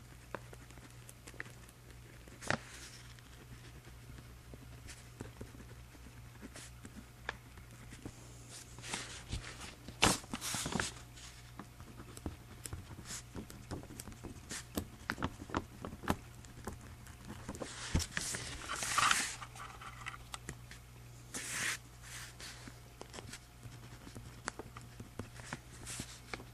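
Pen writing on journal paper: soft scratching strokes and small taps, with louder rustling of the paper about ten seconds in and again near nineteen seconds.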